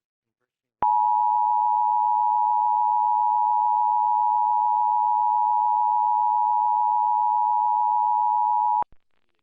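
Emergency Alert System attention signal: a steady two-tone chord of 853 and 960 Hz that starts about a second in and cuts off sharply after about eight seconds. It is the alert tone that precedes the spoken test message.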